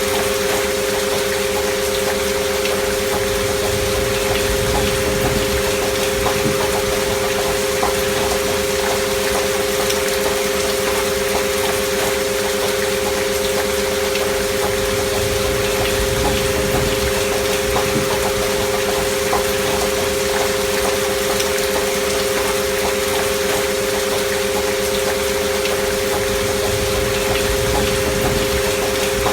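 Two steady, unchanging pure tones, as used for healing-frequency binaural tracks, held over a constant rain recording that gives an even hiss with soft patter.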